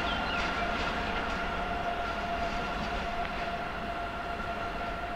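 Two coupled electric locomotives running light along the track, with a steady whine over wheel-on-rail rumble that slowly fades as they move away.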